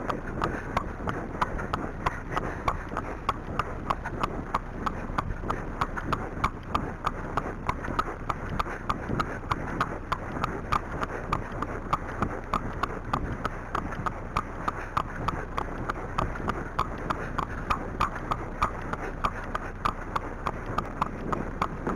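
Arabian horse's hooves striking a tarmac lane in a steady clip-clop, several strikes a second, as it is ridden along.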